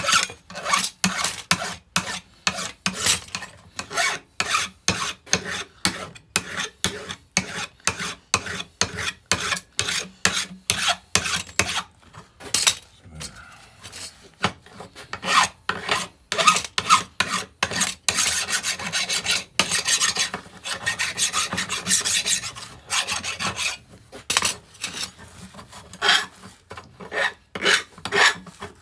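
Hand file rasping across the cut ends of small steel rods in quick repeated strokes, about two to three a second, with a short pause about halfway; the filing deburrs the sharp edges.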